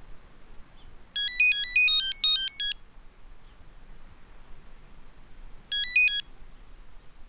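Mobile phone ringtone: a quick run of electronic beeping notes starting about a second in and lasting about a second and a half, then a shorter phrase of a few notes near six seconds, over a faint background hiss.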